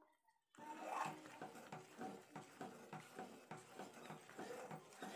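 Steel spoon stirring a thick, sticky Mysore pak mixture of gram flour, sugar syrup and ghee in an aluminium pot: a faint, quick run of scraping and squelching strokes that starts about half a second in.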